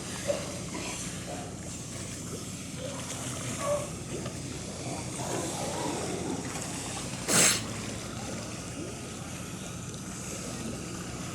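A seal sneezing once, a short sharp burst about seven seconds in, over steady background noise.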